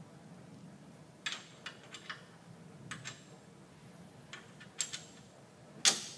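Scattered sharp metallic clicks and clinks of a bolt and steel suspension parts knocking together as they are handled at the front wheel knuckle, with a louder burst of clinks near the end.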